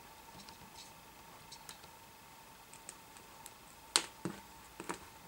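Alligator-clip test leads clicking lightly as they are handled, a few short clicks with the sharpest about four seconds in, over a faint steady tone.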